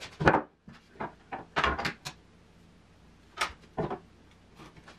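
Several separate knocks and clunks of wooden pieces being handled and set down on a workbench, with a pause of about a second midway: the 2x6 leg pieces being arranged and a wooden layout template laid on them.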